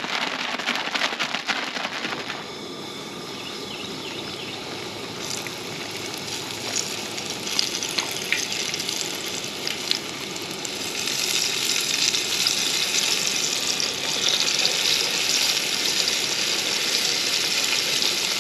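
Flour-dredged wild turkey breast slices frying in hot vegetable oil in a skillet: a steady sizzle with small pops. It follows a brief rustle at the start and grows louder about eleven seconds in.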